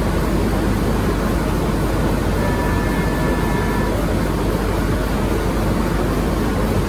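Rotogravure printing press running at speed, a steady machine noise with a low hum underneath, as the printed film web runs over the rollers. A faint high tone sounds for about a second and a half, starting about two and a half seconds in.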